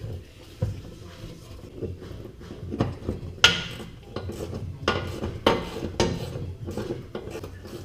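Metal wrenches and sockets clinking and knocking against steel in a run of irregular sharp clacks, the loudest about three and a half seconds in, while undoing the nuts that hold the rear of the transmission.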